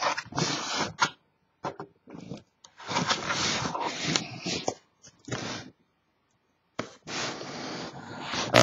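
Packing tape being cut and torn off a cardboard case, heard as irregular scraping and tearing bursts with short pauses between them.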